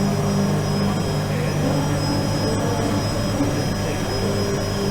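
Steady hum of CNC machinery in a woodworking shop, with higher tones that shift in pitch and come and go every second or so over a constant low drone.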